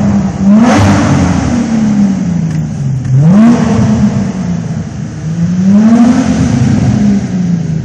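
Infiniti G35's 3.5-litre V6 revving through a TopSpeed Pro-1 aftermarket exhaust: the pitch climbs and falls three times. The tone is smooth, not rattly.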